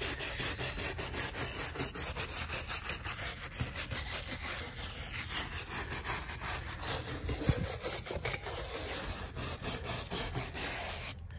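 Soft-bristled brush scrubbing back and forth across a tortoise's shell, which is bare bone where the shell was burned off: repeated rubbing strokes that stop just before the end.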